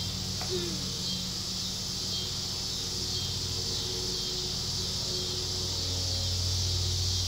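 Steady high-pitched insect chorus in the evening, with a steady low hum underneath that grows louder near the end.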